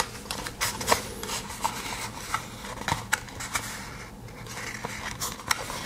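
Hands opening and handling a small knife box: scattered sharp clicks and rubbing of the packaging.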